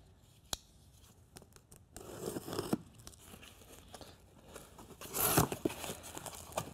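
Cardboard box opened by hand: a few small clicks, then rustling and tearing of the cardboard flaps and packing, loudest about five seconds in.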